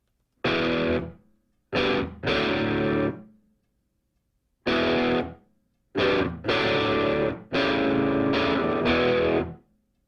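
Intro music: distorted electric guitar playing chords in short blocks, each stopping dead into silence, with a longer run in the second half.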